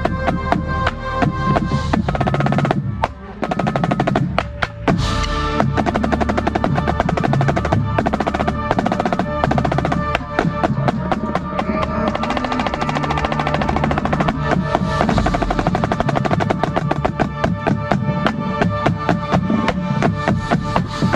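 Marching snare drum played up close with fast strokes and rolls, over the rest of the drum corps playing with it. The drumming breaks off briefly about three seconds in and again a little later, then carries on densely.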